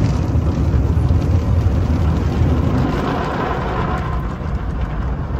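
Automatic car wash machinery running around a truck, a loud steady rushing noise heard from inside the cab.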